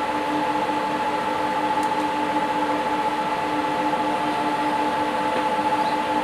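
A 3D-printed electrostatic loudspeaker playing a steady hissing, rumbling sound with a few held tones underneath. The sound is loud and unchanging.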